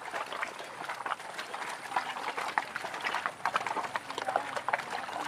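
Hooves of a herd of cattle walking through wet, muddy ground: many irregular, overlapping steps.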